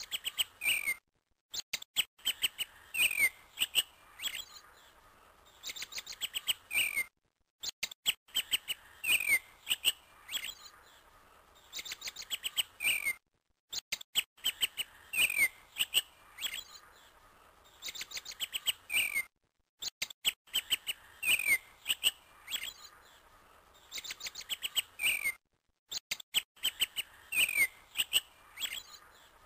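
Recorded birdsong: quick chirps, trills and short falling whistled notes. The same few seconds of song repeat about every six seconds, each time after a brief dead-silent break, as a looped soundtrack.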